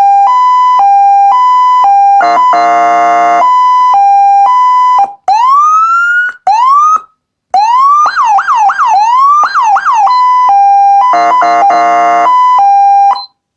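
Federal Signal SmartSiren SS2000 electronic siren sounding a loud hi-lo two-tone, switching between two pitches several times a second. It is broken by an air-horn blast, then a few rising manual sweeps and quick up-and-down yelps, and comes back to hi-lo with short stuttered air-horn blasts near the end, cutting off suddenly.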